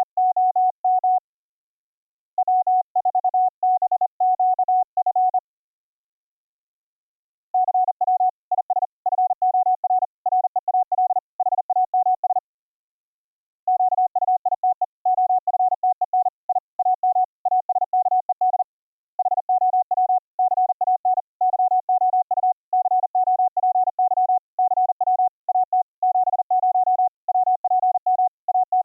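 Morse code (CW) from YPLog's software CW keyboard: a single steady tone keyed rapidly in dots and dashes, with short pauses between groups. It is played back through a Gstreamer resampling chain meant to stop audio buffer dropouts, pops and clicks.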